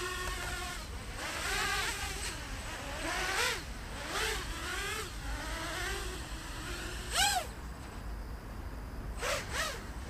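Diatone GT-M515 racing quadcopter's brushless motors and Master Airscrew Racing Series three-blade propellers buzzing, their pitch swinging up and down with the throttle. A sharp rise and fall about seven seconds in is the loudest moment.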